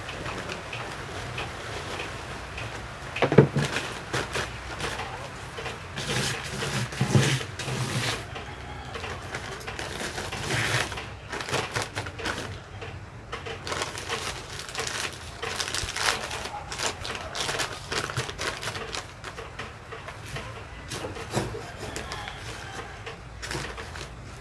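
Potting mix poured from a plastic tub into a black plastic nursery bag and pressed down by hand: the soil sliding and the thin plastic bag rustling, with many small irregular taps and a sharper knock about three seconds in.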